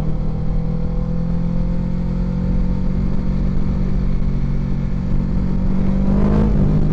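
Kawasaki Ninja 650R's parallel-twin engine running under way, its pitch slowly rising as the bike gathers speed, with a small dip in revs near the end.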